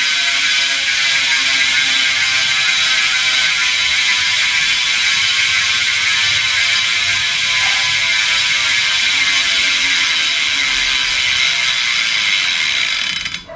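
Sagmit M120 rear hub's pawls (6 pawls, 3-tooth engagement) ratcheting in a fast, steady buzz as the wheel freewheels. It slows slightly and cuts off suddenly near the end. The click is loud and clanking rather than fine, the sound of the hub after about a month and a half of use.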